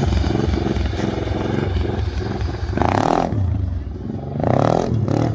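Racing lawn mower's engine running hard around a dirt track, its loudness dipping about four seconds in and rising again near the end as the throttle is worked.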